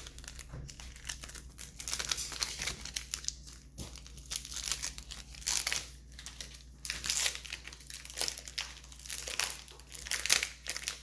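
Foil Pokémon booster-pack wrappers crinkling, crackling in irregular bursts as they are handled and opened.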